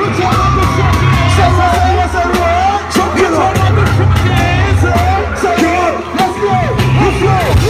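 Live hip-hop music over a concert PA: a heavy bass beat with many voices yelling and singing along. The bass drops out briefly about three seconds in and again near six seconds.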